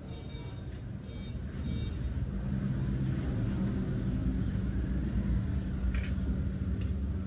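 A motor vehicle's engine running steadily with a low hum that gets louder about two seconds in.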